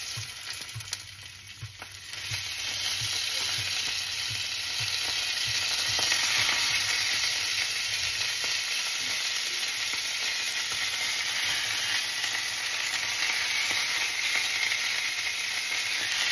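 Raw pork sausages sizzling in a very hot stainless steel frying pan with a thin film of leftover oil. The sizzle grows louder about two seconds in as more sausages go into the pan, then holds steady.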